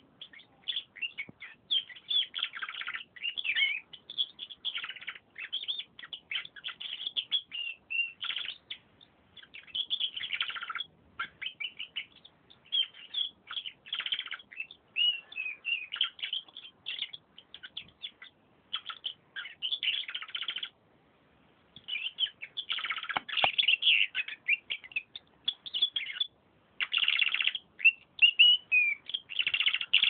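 Domestic canary singing a long run of rapid trills and chirps, phrase after phrase, with one short pause about two-thirds of the way through.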